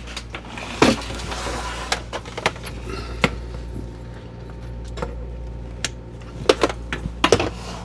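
Scattered clicks and light knocks as a household drip coffee maker is handled and switched on for a power test, over a steady low hum.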